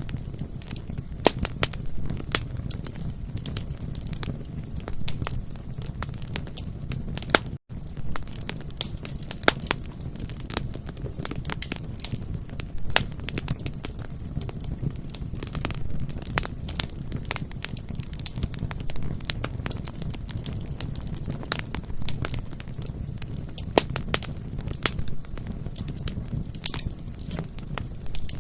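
Bonfire crackling: a steady low rumble of burning with frequent irregular sharp pops and snaps. About seven and a half seconds in, the sound cuts out for an instant.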